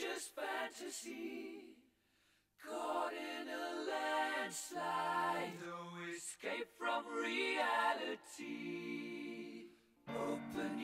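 Background song: singing voices with little audible accompaniment, in phrases broken by brief pauses, about two seconds in and near the end.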